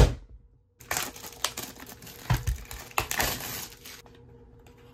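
Plastic shrink wrap on a trading-card box crinkling and crackling as it is sliced with a utility knife and handled, with several sharp clicks, from about a second in until near the end. A sharp knock right at the very start is the loudest sound.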